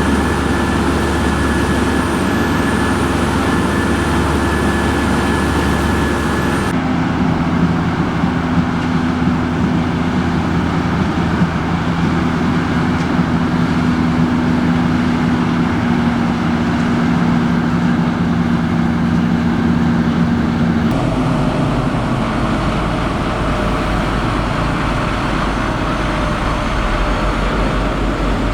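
Heavy harvest machinery engines running steadily at constant speed, heard in three stretches that change abruptly about 7 seconds in and again about 21 seconds in.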